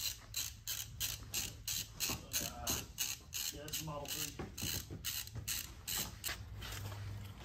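Hand ratchet wrench clicking in quick, even strokes, about three a second, as it runs bolts into a Tesla Model 3 drive unit's aluminium housing.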